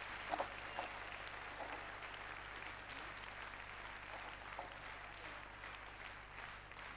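Audience applauding faintly, dying away slowly.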